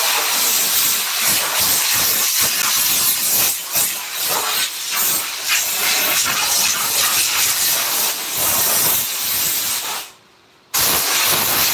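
Compressed-air spray gun hissing steadily as it sprays a coat onto a wood carving. It cuts off about ten seconds in and starts again a moment later.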